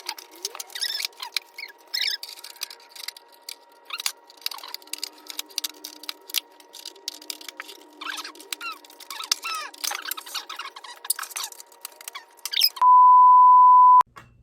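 Rapid high-pitched squeaky chirps and clicks with the low end missing, then a loud steady beep tone lasting about a second near the end.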